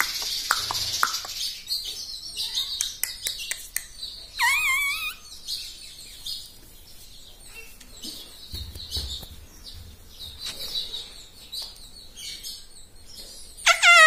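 Indian ringneck parakeet giving short warbling calls: one about four seconds in and another near the end. A run of light clicks comes between them early on.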